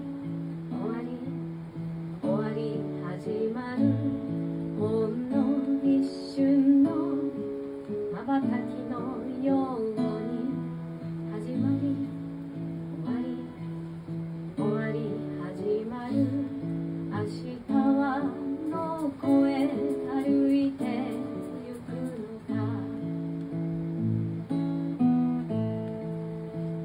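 Steel-string acoustic guitar playing an instrumental passage of strummed and picked chords in a steady rhythm.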